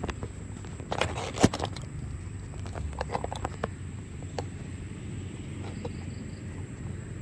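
Handling noise: a scatter of light clicks and knocks, the sharpest about one and a half seconds in, over a steady low hum.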